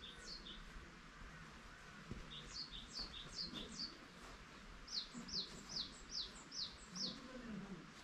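A small songbird singing faintly, runs of short, high, downward-slurred notes repeated about two or three times a second: a run of about five notes some two and a half seconds in, then an even run of six from about five seconds in.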